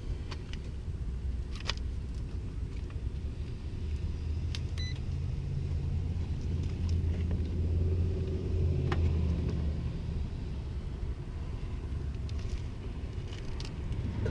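A low rumble that builds through the middle and eases off, with a few light clicks and one short beep about five seconds in.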